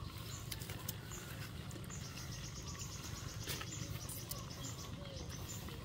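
Insects chirping: a short high chirp repeating just under once a second, joined by a rapid high trill in the middle, over a low steady rumble with a few faint clicks.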